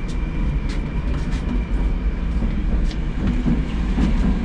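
Inside a moving 81-765/766/767 "Moskva" metro car: the steady low rumble of wheels and running gear on the rails, with scattered sharp clicks and knocks. A faint high steady tone fades out about halfway through.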